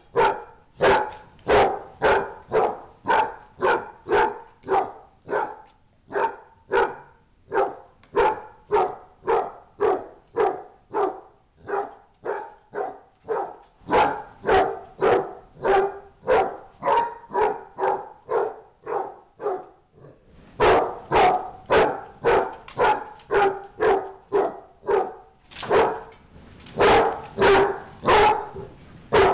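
A dog barking over and over in a steady, even rhythm of about one and a half barks a second, pausing briefly about twenty seconds in before carrying on.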